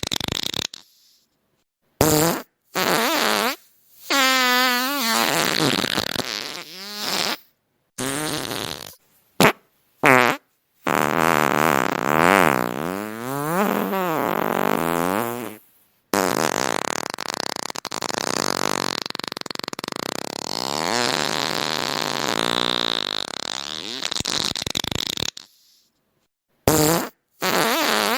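A string of fart sounds, one after another with short silent gaps. Several brief ones come first, then two long drawn-out ones whose pitch wobbles up and down, then a couple of short ones near the end.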